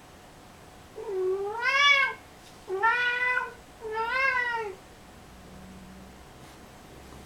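Male cat giving three long, drawn-out yowling meows in a row, each rising and falling in pitch, while mounting a hat in mating behaviour.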